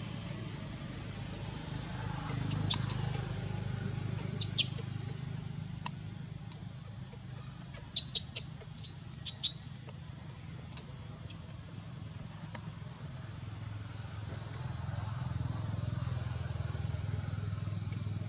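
Steady low hum of a running engine, with a few short, sharp high clicks or chirps scattered through the first half, most of them clustered around 8 to 10 seconds in.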